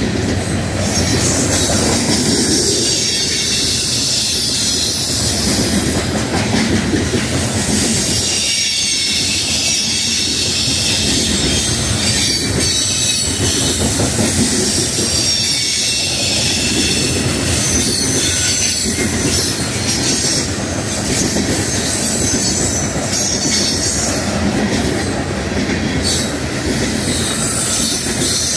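Freight train coal cars rolling past close by: a loud, steady rumble and clatter of steel wheels on rail, with high-pitched, wavering squealing from the wheels over it.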